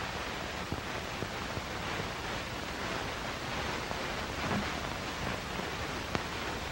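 Steady hiss and crackle of a worn 1930s optical film soundtrack, with a few faint clicks.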